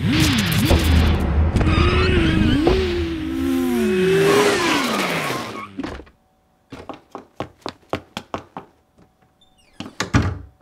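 Added motorcycle sound effect of the bike skidding to a stop: engine whine and tyre squeal gliding up and down in pitch over a low rumble, cutting off about six seconds in. Then quick light footsteps at about four a second, with a couple of knocks near the end.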